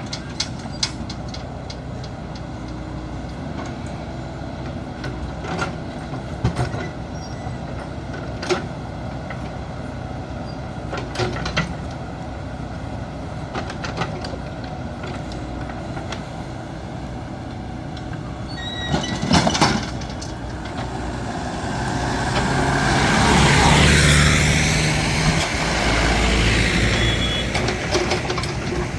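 JCB backhoe loader's diesel engine running steadily, with scattered metallic clanks and knocks, a cluster of them about two thirds in. Near the end a loud rush of noise swells up and dies away.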